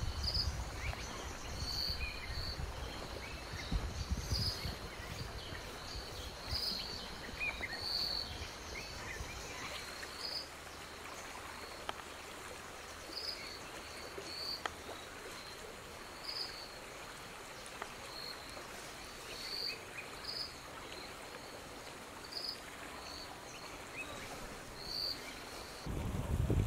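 Steady hiss of a shallow rocky stream with a short, high chirp repeating about once a second, and faint taps of a knife cutting vegetables on a wooden board. A low rumble fills the first ten seconds or so, then fades.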